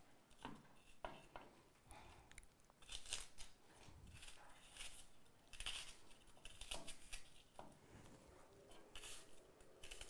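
Small kitchen knife cutting pieces off an onion held in the hand: quiet, irregular crisp cuts.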